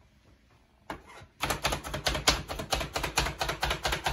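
Pampered Chef plunger food chopper being pumped rapidly, its blades clacking down through carrot and sweet potato at about three to four strokes a second. The strokes start about a second and a half in, after a quiet pause.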